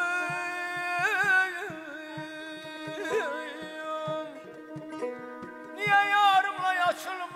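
Azerbaijani mugham singing: a male voice holds long notes broken by rapid wavering throat ornaments, three times, over a steady low instrumental drone and soft, regular drum beats.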